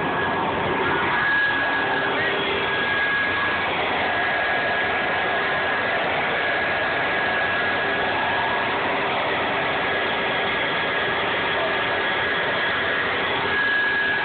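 Handheld electric blower running steadily, with an even rush of air and a constant high whine, as it inflates a water walking ball.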